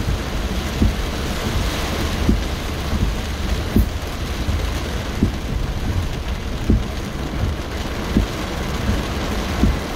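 Heavy rain falling on a car's roof and windscreen, heard from inside the cabin, with a short low thump about every second and a half.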